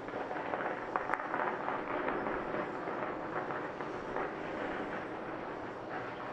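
A string of firecrackers crackling in a rapid, irregular run of small pops that starts just after the beginning and keeps going, with the sharpest cracks about a second in.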